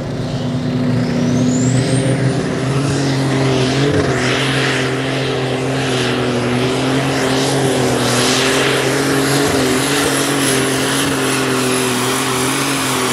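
A Super Stock pulling tractor's turbocharged engine runs flat out under load, dragging the weight sled. A high turbo whine rises over the first two seconds, then holds steady over the engine's steady note.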